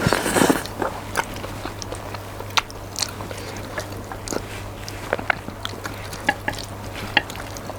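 Close-miked mouth sounds of a person eating spicy mixed noodles: wet chewing and sharp lip-smacking clicks scattered through, after a short rush of noise at the start. A steady low electrical hum from the microphone runs underneath.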